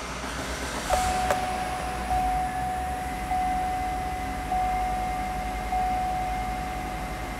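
A 2009 Chevy Suburban 1500's V8 engine starts about a second in and then idles. A steady high tone runs over it, pulsing about once a second.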